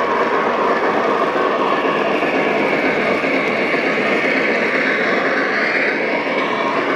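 Lionel Greenbrier model steam locomotive and its freight cars running along the layout's track: a steady, dense rumble of wheels and running gear.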